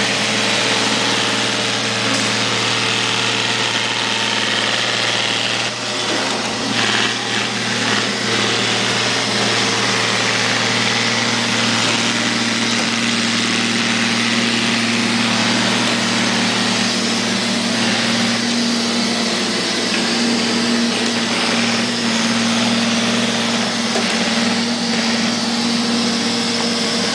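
Neato robot vacuum cleaner running steadily, its motor and brush giving a constant low hum, with a few knocks about six to eight seconds in.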